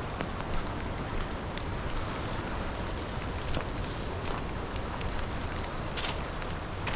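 Steady rushing of high water at a small lake dam, with a few scattered ticks of rain.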